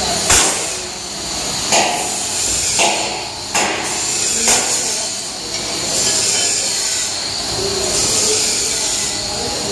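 LF02 vibratory feeder running at its 30% controller setting: a steady hiss of grain rattling on the vibrating steel tray, with a steady high hum. About five sharp knocks come in the first five seconds.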